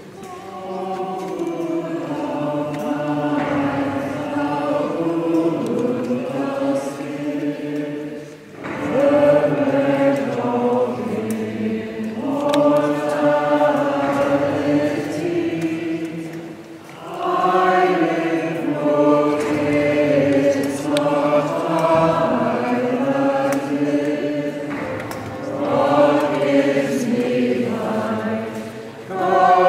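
Choir singing a slow hymn during Communion, in long phrases of about eight seconds with brief pauses between them.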